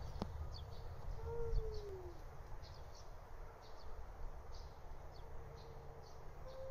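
A cat's low, drawn-out warning yowl in a standoff with another cat: a long held moan that slides down in pitch about a second and a half in, starting up again near the end.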